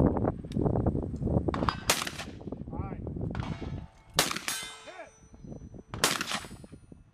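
Shotgun fire at steel targets: three sharp reports, about two seconds apart, each followed by a metallic clang and ringing from struck steel, over a run of duller thumps in the first few seconds.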